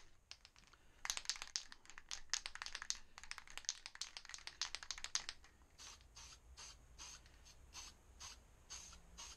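Aerosol spray can of high-temperature black paint shaken hard, its mixing ball rattling rapidly for about four seconds, then a string of short spray hisses, about two a second.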